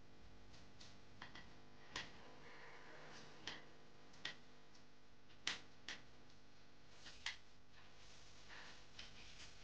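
Spatula knocking and scraping against a non-stick wok while stirring a thick, sticky rice-flour dough: about half a dozen sharp clicks at irregular spacing over a faint background.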